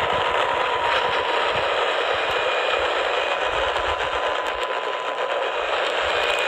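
AM radio static: a steady hiss and crackle with a faint high whistle running under it, the sound of a radio tuned to a weak or lost station.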